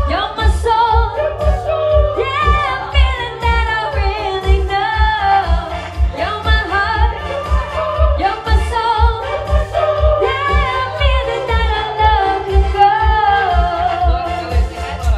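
A woman singing a held, wavering melody into a microphone, backed by a Yamaha Tyros 4 arranger keyboard with a steady bass beat.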